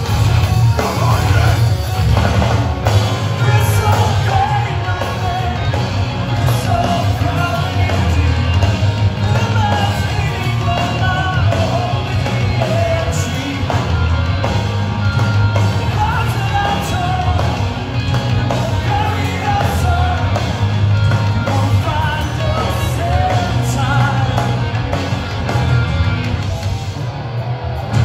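A live hardcore band playing loud, with distorted electric guitars, bass, drums and a sung lead vocal, heard from within the crowd.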